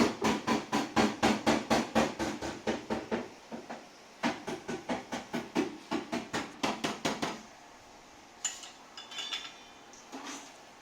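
Hammer striking sheet-metal car body panels in quick, even blows, about four a second. Two runs of blows with a short pause between them, then a few lighter metallic clinks near the end.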